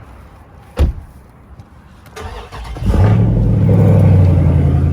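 A single thump about a second in, then a car engine starts up and from about three seconds in runs loud and steady.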